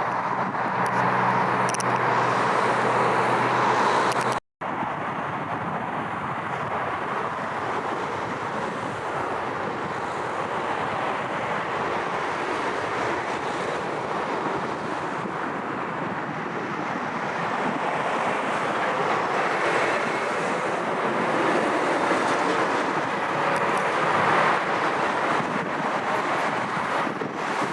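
Jet airliner engine noise, a steady rushing roar, broken by an abrupt cut about four and a half seconds in and swelling a little again in the second half.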